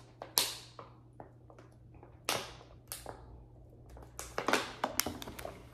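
Bottles being handled while vitamins are taken: a string of sharp clicks, taps and crinkles, busiest about four to five seconds in.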